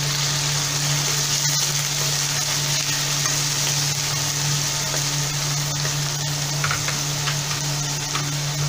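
Chopped onions and onion paste sizzling in hot mustard oil in a pan, stirred with a spatula. A steady low hum runs underneath.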